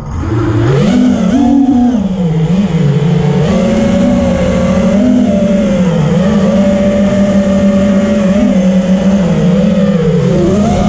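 A 5-inch FPV racing quadcopter's brushless motors and three-blade props buzz in flight, heard close from its onboard camera. The pitch rises and falls with the throttle: it climbs in the first couple of seconds, then holds fairly steady with small wobbles, and dips and climbs again near the end.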